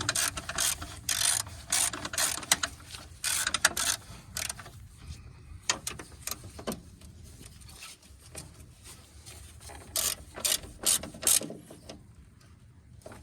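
Hand ratchet with a 10 mm socket clicking in quick runs of strokes as a nut is tightened down. The clicking is densest in the first four seconds, sparse for a while, then comes again in a short run about ten seconds in.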